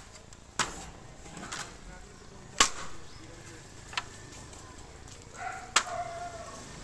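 Four sharp clicks or knocks at irregular intervals, the loudest about two and a half seconds in.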